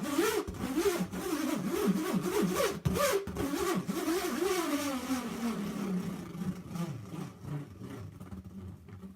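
Hex nut whirling round inside an inflated rubber balloon, making a buzzing shriek whose pitch wobbles up and down; the nut's corners knocking the rubber set it vibrating. The pitch slides lower and the sound fades over the last few seconds.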